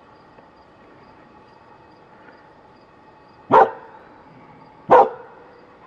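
A dog barking twice, short loud barks about a second and a half apart, over a faint steady hum.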